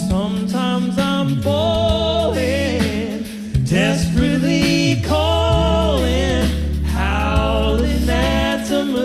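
All-vocal a cappella group singing wordless close harmonies over a deep sung bass line, heard as a live radio broadcast.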